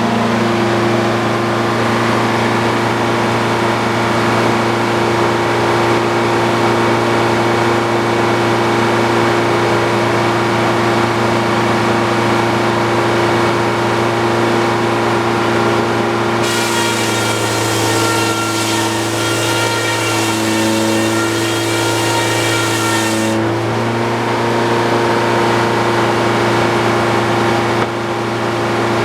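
Old Frick circular sawmill running steadily under its engine. About halfway through, the blade cuts through a log for roughly seven seconds, adding a high singing whine, which stops sharply as the cut ends.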